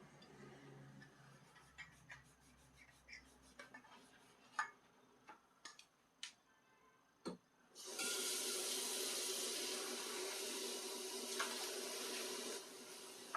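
Scattered light clinks and knocks of dishes being handled at a sink. About eight seconds in, the kitchen tap is turned on and water runs steadily into the sink, its sound dropping a little near the end.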